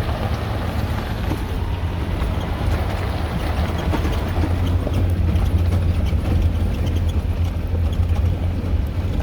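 Jeep Wrangler driving with its doors and top off: steady low engine and road rumble, with tyre and wind noise coming straight into the open cab.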